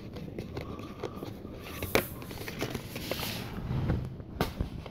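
A glued paper sheet being peeled and rustled off a metal steelbook case, with a couple of light knocks as the case is handled on the table.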